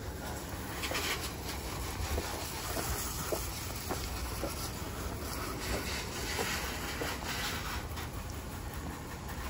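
Water spraying from a hose over a car's bodywork, the hiss swelling and fading in several bursts over a steady low rumble.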